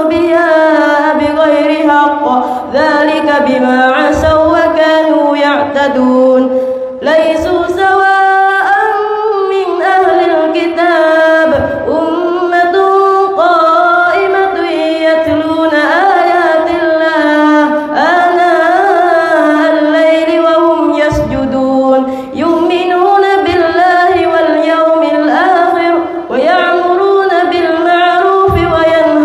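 A boy's melodic Quran recitation through a microphone, sung in long, drawn-out phrases that glide up and down, with a few short breaks for breath.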